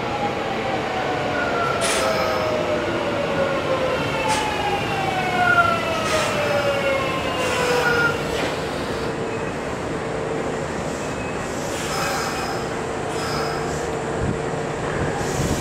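Kintetsu electric commuter train braking into the station: its motor whine falls steadily in pitch for about eight seconds over wheel rumble and a few clunks, then settles into a steady hum as the train comes to a stop.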